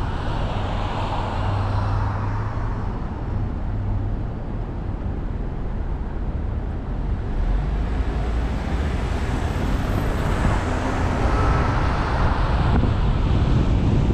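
Car and street traffic noise with a steady low rumble, growing louder about eight seconds in as the car pulls away from a green light.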